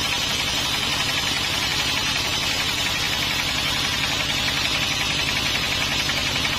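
Sawmill machinery running steadily: a motor-driven saw with a fast, even pulsing under a steady hiss.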